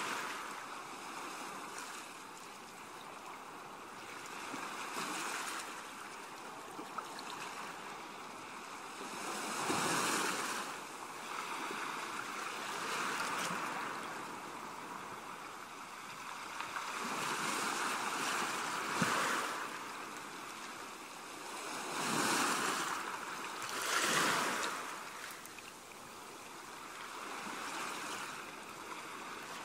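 Ocean waves washing in and out, the hiss of the surf swelling and falling back every few seconds.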